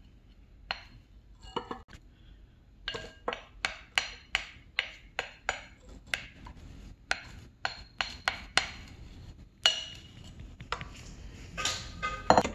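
Sharp taps on mixing bowls with a short ringing tail as the last of the flour is knocked out of a ceramic bowl into a stand mixer's steel bowl, the mixer stopped. There are a few spaced taps at first, then a steady run of about two or three a second through the middle, then a few more.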